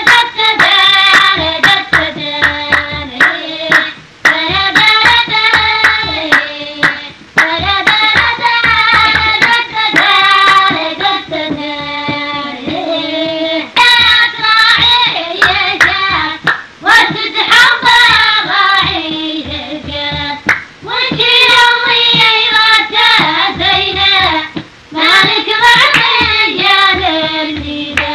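Music: a voice singing a wavering, ornamented melody over sharp hand claps.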